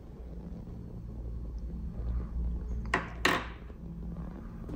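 Steady low hum, with two short rustling handling noises about three seconds in as the hand-held capacitor and camera are moved.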